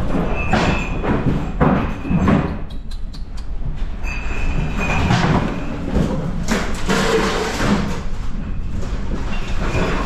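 A tanker's wheelhouse rolling in heavy seas: a steady low rumble of wind and sea under irregular clattering knocks, with two short high squeals from fittings straining, one early and one about halfway through.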